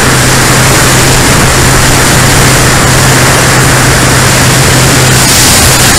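Onboard sound of a Great Planes Revolver RC aerobatic plane in flight: its motor and propeller running at a steady pitch, under loud rushing wind across the camera's microphone.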